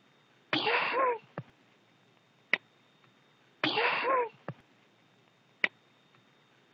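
A toddler's short breathy squeal, repeated three times about three seconds apart in an identical loop. Sharp single clicks fall between the squeals.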